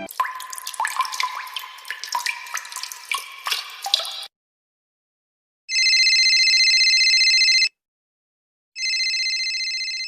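Water drops plinking irregularly, each with a short rising pitch, for about four seconds. After a pause, an electronic telephone rings twice: a trilling ring of about two seconds, a one-second gap, then a second ring.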